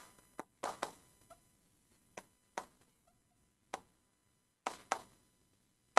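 Pen tip tapping on the glass of an interactive touchscreen board while writing: a scattering of faint, separate clicks at uneven intervals.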